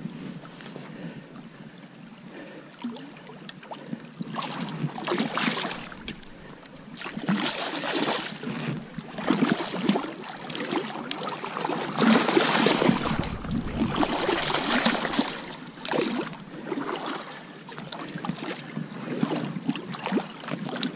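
Water splashing and sloshing in irregular bursts in a shallow stream, from a hooked coho salmon thrashing at the surface while the angler wades toward the bank to beach it.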